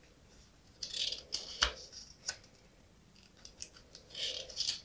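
A tiny paper storybook being handled and its pages turned: short, quiet rustles about a second in and again near the end, with a few small clicks between.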